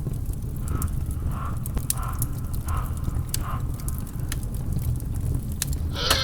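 Fire crackling over a steady low rumble, with a few short soft squeaks repeating about every 0.7 s. A loud animal cry starts right at the end.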